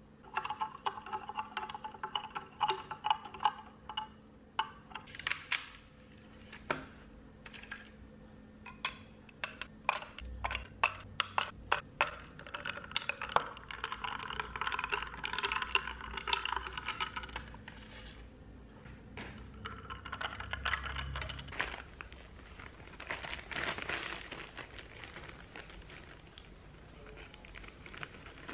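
Milk poured into a drink in a glass, then a metal spoon stirring it, clinking repeatedly against the glass.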